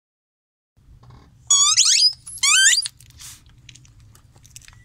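Rubber squeaky bath toys squeezed under a car tyre, giving two loud squeaks, each well under a second, about a second apart, over a faint low rumble.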